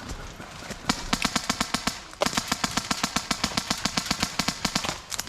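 Airsoft gun firing on full auto in two bursts, at about ten shots a second: the first starts about a second in and lasts about a second, and the second follows straight after and runs for about three seconds.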